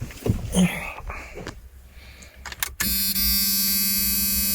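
A few faint clicks, then about three seconds in a car's starter motor begins cranking with a steady whine. The starter is running on the jump starter pack alone, with the car's battery disconnected.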